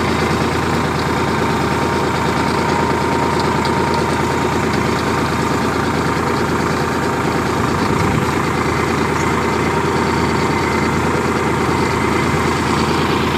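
Tractor engine running steadily while pulling a cultivator through the soil.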